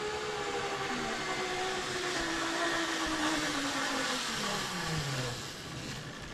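Zipline trolley pulleys running along the steel cable as a rider goes down the line: a whirring whine that falls steadily in pitch and fades away over about five seconds, over a hiss from the cable.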